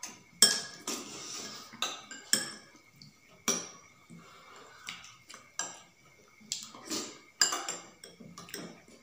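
Metal spoons clinking and scraping against steel plates and bowls as two people eat. The sharp taps come irregularly, each with a brief ring.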